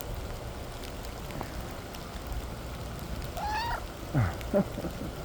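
Domestic cat meowing: one rising-and-falling meow about three seconds in, then two short falling calls, over steady rain.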